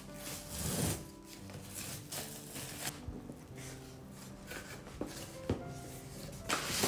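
A cardboard box being opened by hand: packing tape pulled off and the flaps lifted, with several short scraping and rustling sounds of cardboard, the loudest near the end. Soft background music plays underneath.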